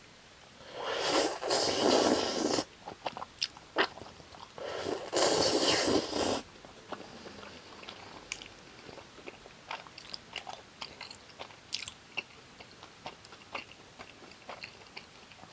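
Two long, loud crunching bites into fried gimmari (seaweed-wrapped glass-noodle rolls), then chewing with many small crunches and clicks.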